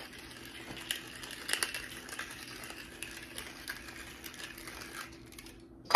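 Hand pepper grinder being twisted, a rapid irregular crackle of peppercorns being cracked, stopping shortly before the end.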